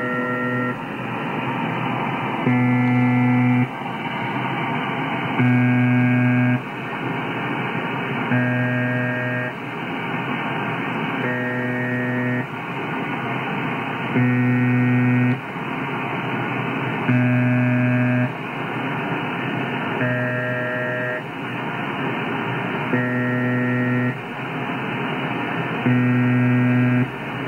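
Software emulation of the UVB-76 'Buzzer' shortwave station, made in Spectrum Lab. A steady, muffled radio hiss runs throughout, and a low, rough buzz about a second long sounds roughly every three seconds, nine times in all.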